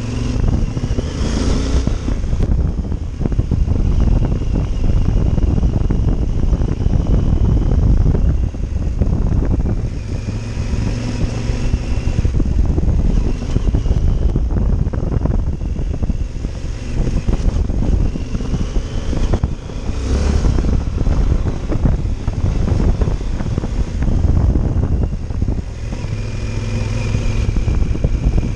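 Yamaha Super Tenere's 1200 cc parallel-twin engine running under way, its note rising and falling several times as the bike accelerates and eases off. Heavy wind and road rumble are on the microphone.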